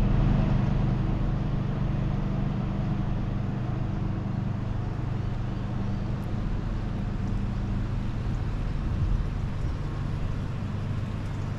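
Engine running steadily at a low, even pitch: a constant low hum.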